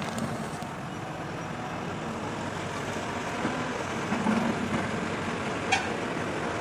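Hyundai 140 crawler excavator's diesel engine running steadily while the machine digs soil, with a single sharp clank near the end.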